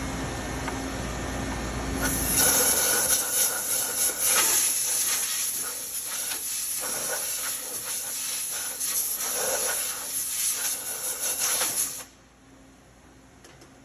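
CNC lathe running a thread-cutting pass: a loud, steady hiss starts about two seconds in and cuts off abruptly near the end.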